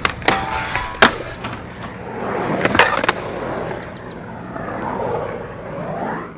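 Skateboard wheels rolling, with several sharp clacks of the board in the first three seconds, then a smoother roll that fades out near the end.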